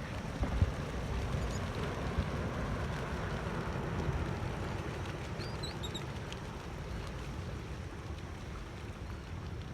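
Steady rushing of water and wind where the river meets the sea, with a few short, high bird calls about halfway through.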